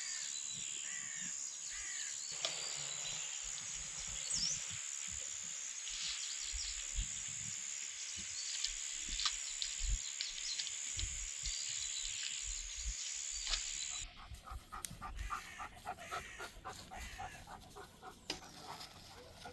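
Birds chirping over a steady, high insect drone in a forest. About fourteen seconds in, this cuts off abruptly and gives way to a dog panting quickly and rhythmically.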